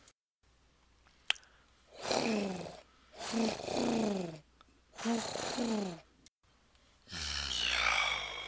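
A man making animal noises with his voice: three breathy coos, each falling in pitch and lasting about a second, in imitation of a wood pigeon, then a louder rasping growl near the end.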